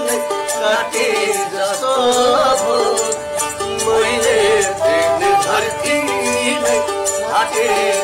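Nepali folk song: a man's singing voice over a melodic instrument and a steady rattling percussion beat.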